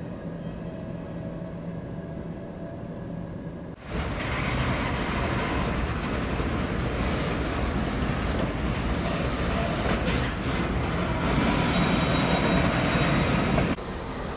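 Diesel locomotive engine running steadily, then, after about four seconds, freight cars rolling past close by with a loud, steady noise of wheels on rails. The rolling noise drops somewhat near the end.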